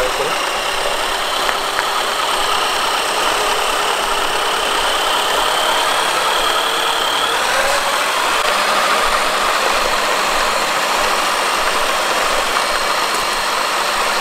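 Electric drivetrain of a Traxxas TRX-4 scale crawler under load while towing two toy RC trucks, with a faint high whine from the motor and gears in the first half. Underneath is a steady hiss of tyres rolling on asphalt.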